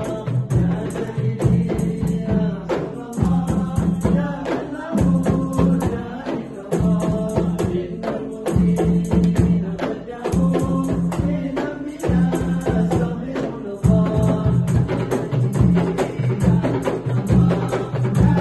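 Men's voices chanting a devotional zikir together to the beat of hand-struck frame drums and a large barrel drum, in a fast, steady rhythm.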